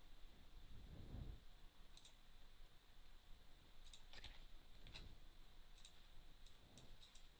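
Faint computer mouse clicks over quiet room tone: a few scattered clicks, then quicker ones near the end.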